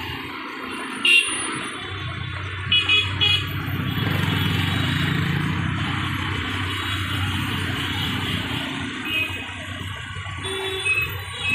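Road traffic with engines running and vehicle horns honking: one short blast about a second in, three quick toots around three seconds in, and more short honks near the end.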